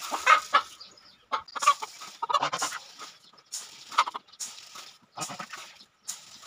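Chickens clucking in short separate calls, mixed with the dry rustle and rattle of corn kernels as a hand scoops them in a plastic bucket.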